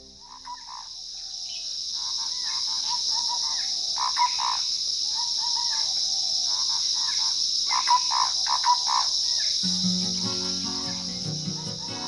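A steady high insect drone with repeated short bird calls over it, in a forest. Soft music comes in near the end.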